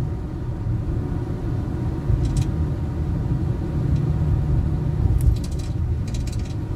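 Car driving on a wet road: a steady low rumble of tyre and engine noise, with a few brief clicks about two seconds in and again near the end.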